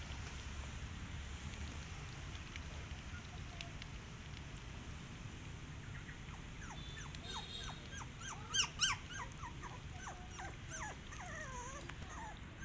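Puppies whimpering: from about halfway through, a quick run of short, high, falling whines, with two loud sharp yelps about two-thirds of the way in and wavering whines near the end, over a low steady background hum.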